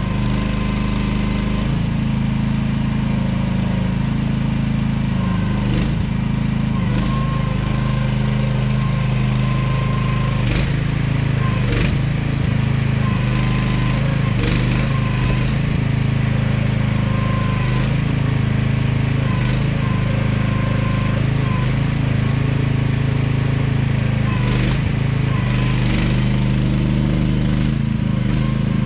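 AGT QH12R mini excavator's engine running steadily under load, with a thin whine that comes and goes and occasional knocks as the machine works.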